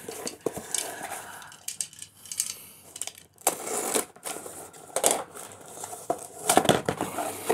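Cardboard parcel box being handled and turned over by hand, with irregular knocks and scuffs as it shifts against the table and fingers slide over it.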